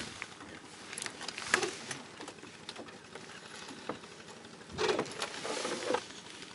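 Hands handling float-fishing tackle: scattered light clicks and taps, then a short rustle near the end.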